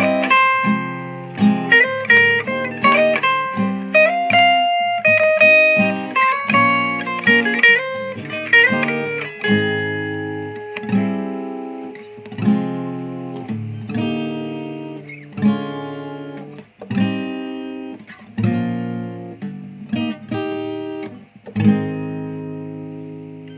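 Solo guitar, most likely acoustic, playing a fingerstyle arrangement of a song with the vocal melody picked out over chords. The quick melody notes give way to slower chords left to ring, and a final chord near the end fades away.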